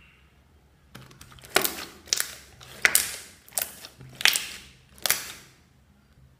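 Blue slime being pressed and squeezed by hands, with trapped air popping out in about six loud, sharp pops over roughly four seconds, starting about a second in.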